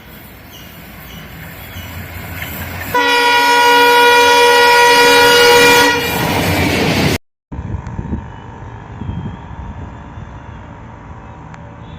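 Twin WDP4 diesel locomotives coming closer with a rising rumble, then sounding one long, steady horn blast for about three seconds. The sound breaks off abruptly about seven seconds in, and the train's rumble and wheel clatter go on more quietly after that.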